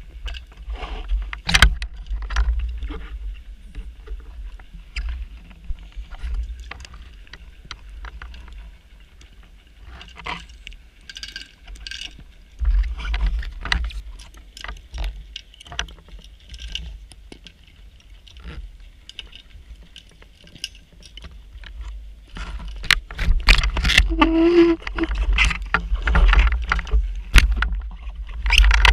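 Underwater noise picked up by a diver's camera on a wreck dive: low rumbling surges with many scattered clicks and knocks, louder in the last few seconds.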